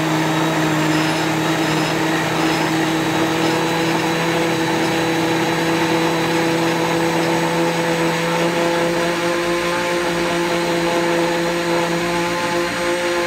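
Countertop blender running steadily at full speed, blending coconut cream and simple syrup: a loud, even motor whine with a hum beneath it.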